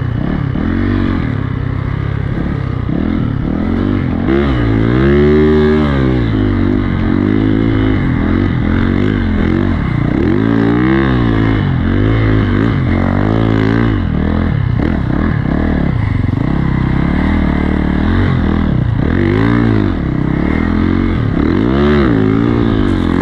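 Timbersled snowbike's engine revving up and down, close up, its pitch rising and falling again and again, every second or two, as the throttle is worked through the trees.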